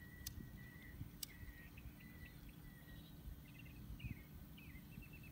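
Faint outdoor ambience: high-pitched chirping and trilling, with two sharp clicks about a quarter second and a second in, over a low rumble.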